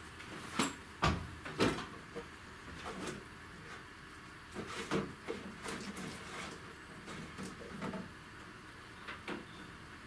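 Knocks and clatters of objects being shifted while someone rummages through workshop shelves and cupboards. Three sharp knocks come in the first two seconds, then scattered lighter bumps, with louder ones about five seconds in and near the end.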